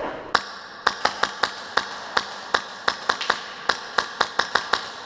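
Airsoft gun firing a rapid, uneven string of about twenty semi-automatic shots, sharp cracks at roughly four or five a second, starting about a third of a second in.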